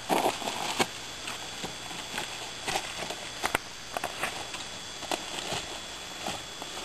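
Footsteps crunching and rustling through dense brush and dry leaves, in irregular clicks and snaps, busiest in the first second.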